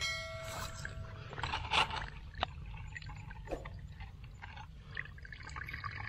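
Hands stirring and scooping in shallow muddy ditch water: small splashes and trickling, with scattered clicks of soil and twigs over a steady low rumble. A short bell-like chime rings and fades at the very start.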